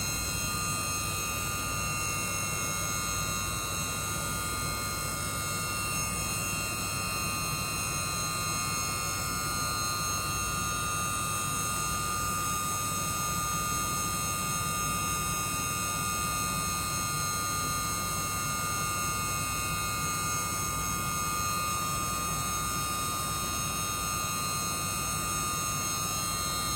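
YCM JC16 CNC vertical machining center running steadily: a constant low hum with several steady high-pitched whines over it.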